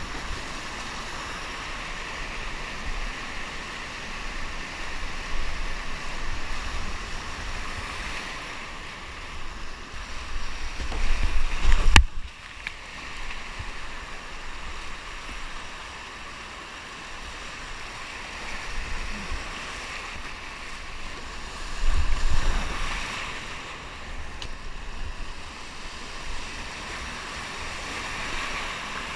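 Rushing whitewater churning around a kayak running a boulder rapid, a steady hiss of moving water. Low rumbling surges come on the microphone about eleven and twenty-two seconds in, and there is one sharp knock about twelve seconds in.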